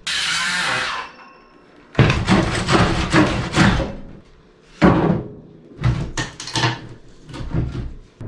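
A second of hiss, then a run of irregular heavy knocks and bangs, several a second at first and then more spaced out.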